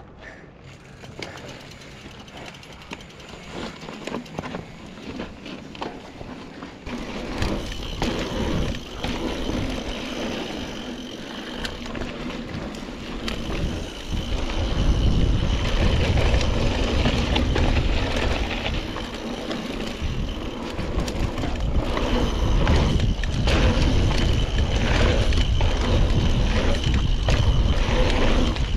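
Mountain bike riding down a dirt downhill trail: tyre and trail noise with the bike's rattle. It gets louder about a quarter of the way in, and a much stronger deep rumble sets in about halfway and holds to the end.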